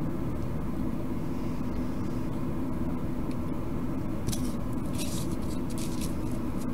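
Steady low hum throughout, with a few light clicks and scrapes of small electronic parts being handled on the bench about four to six seconds in.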